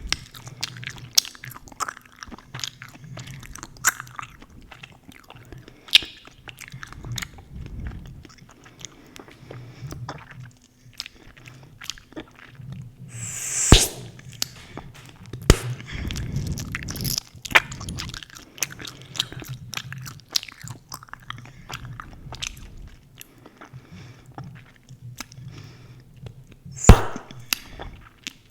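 Chewing gum being chewed close to the microphone: a steady run of wet smacks and clicks of the mouth and gum. Two much louder sharp pops stand out, about 14 seconds and 27 seconds in.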